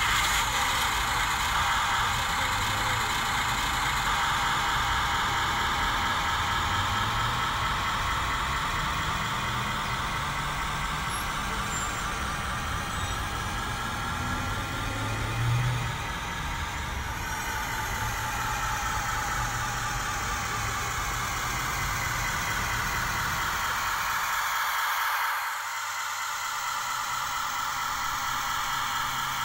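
Truck engine running steadily, with a high whine over a low rumble; the sound changes near the end.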